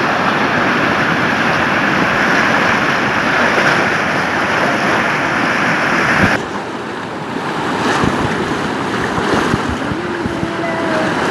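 Loud rushing water with wind buffeting the microphone, a steady noise without rhythm that changes abruptly about six seconds in.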